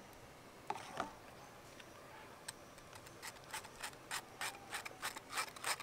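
Mango pulp being rubbed through a sieve to strain out fibres and lumps: a few light clicks, then from about halfway through a run of short scraping strokes, about three a second, growing louder.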